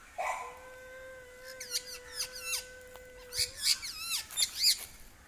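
Pet parrot giving a quick series of sharp chirps and whistles that sweep up and down in pitch, the loudest near the end. Under the first few seconds runs a steady held tone.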